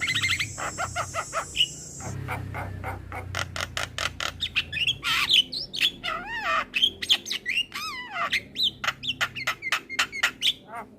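Male Javan myna (jalak kebo) singing in full voice: a fast, busy run of sharp clicks, whistles and warbling notes that slide up and down in pitch.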